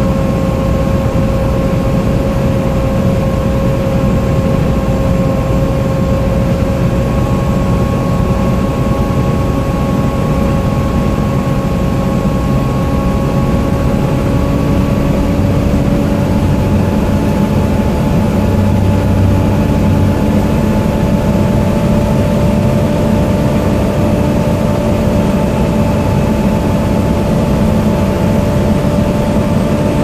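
Volvo B7TL double-decker bus under way, heard from inside on the upper deck: a steady low rumble of engine and road with a high whine over it, the "hoover" whine typical of the B7TL, creeping slowly up in pitch.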